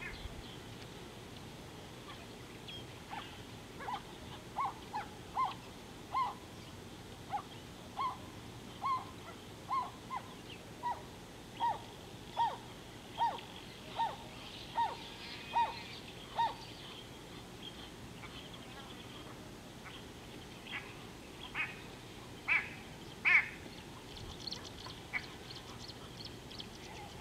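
A bird calling in a long series of short, evenly spaced notes, about one a second. These are followed by a few louder calls and then some thin, higher notes near the end.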